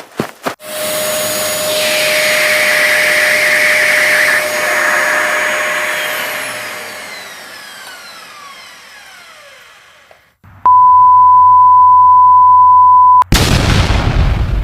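A string of cartoon sound effects: a few quick boings, then a long whooshing rush with a falling whistle that fades away, a steady beep tone for about three seconds, and a sudden crash like an explosion near the end.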